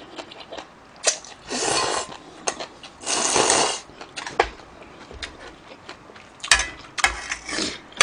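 A person slurping instant ramen noodles close to the microphone, two long slurps about one and a half and three seconds in, with chewing and small clicks between them. Near the end, metal tongs click against the pot.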